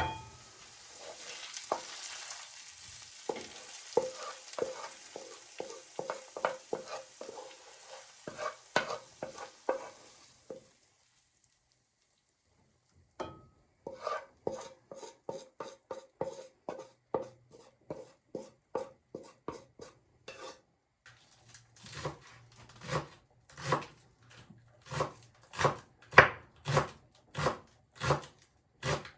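Food sizzling in a pan while a utensil stirs it in regular knocking strokes; the sizzle dies away about ten seconds in. After a short silence, steady rhythmic strokes resume, about two a second, getting louder near the end.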